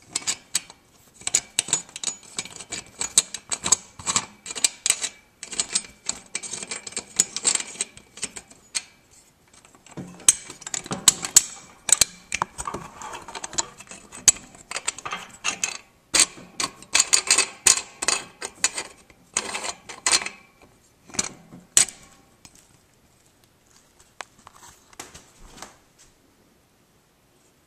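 Hands handling metal mounting hardware close to the microphone: quick, irregular clicks, taps and rattles in dense bursts with short pauses. They thin out to a few scattered clicks late on and stop just before the end.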